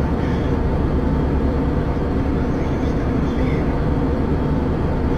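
Steady cabin noise of a passenger aircraft in flight: the even rumble and hiss of its engines and airflow heard from inside the cabin.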